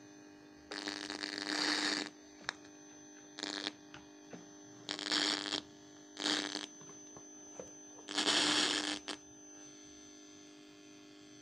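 Portable FM radio receiving a homemade transmitter built from an old TV board: a steady hum from its speaker, broken five times by bursts of hiss, the longest lasting about a second.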